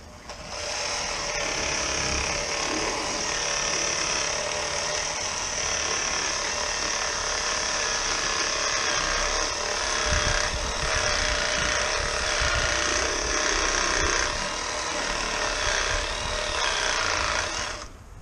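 Electric fillet knife running steadily as its blade saws through a sheepshead, with a few heavier low knocks partway through as it works along the fish; it switches on just after the start and cuts off near the end.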